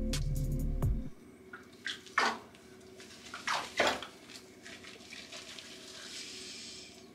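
Background music that cuts off about a second in, then a few short splashes and wet rubbing as a small soaped-up dog is washed in a bathtub, with a faint hiss of water near the end.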